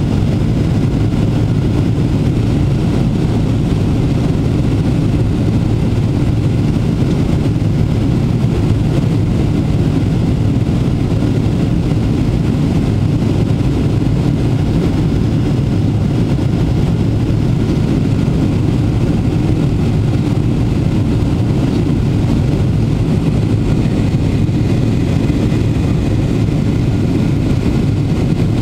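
Steady cabin noise inside a Boeing 777-300ER in flight: the GE90 engines running and air rushing past the fuselage, a loud, even, low-pitched drone.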